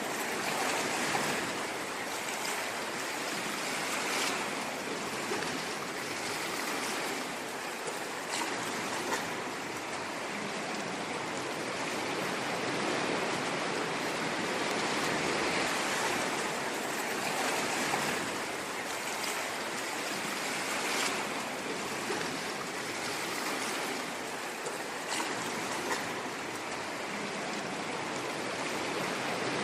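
Ocean waves washing onto a shore: a steady rushing of surf that swells and eases gently.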